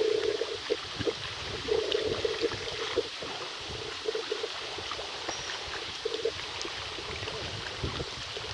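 Water trickling and splashing around a kayak out on a lake, with irregular small knocks and splashes that come in short clusters every couple of seconds.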